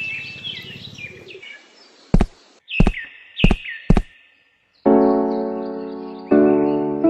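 Birds chirping fade out, four sharp clicks follow about half a second apart, and then background piano music begins with slow sustained chords that change twice.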